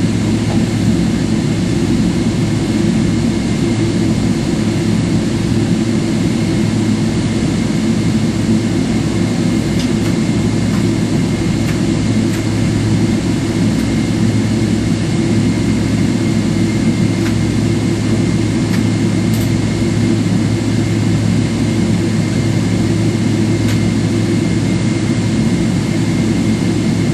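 Steady cabin noise inside a Boeing 777-300ER on the ground, a low even drone with a faint high whine running through it.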